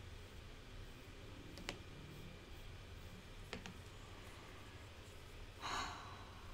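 A few faint clicks of sculpting tools being set down and picked up on the work table: one about two seconds in and two close together past the middle. Near the end comes a short exhaled breath, the loudest sound.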